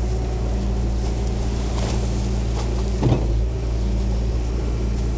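John Deere backhoe's diesel engine running steadily at idle, a low even drone, with one brief louder sound about three seconds in.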